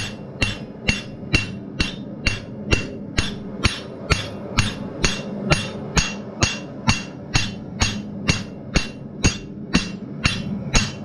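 Hand hammer striking red-hot steel on an anvil in an even rhythm, about two blows a second, pushing and spreading the metal out to widen a forged leaf. A steady low hum runs beneath the blows.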